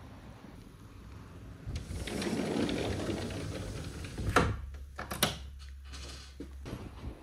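Sliding glass door rumbling along its track, with a few sharp clicks from its handle latch.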